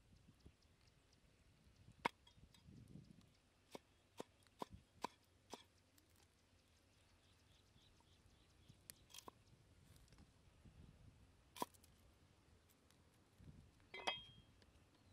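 Cleaver knocking and cutting on a round wooden chopping board as chilies and garlic are chopped: scattered sharp strokes, with a quick run of five about four seconds in.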